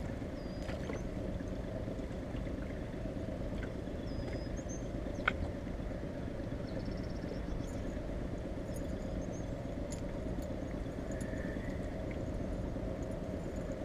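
Steady low rumble of a small boat's outboard motor running at trolling speed, with a few faint high chirps and one sharp click about five seconds in.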